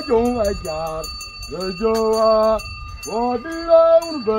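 A singer's voice carrying a melody in long held notes that slide from one pitch to the next, with a faint steady high tone and light clicks behind it.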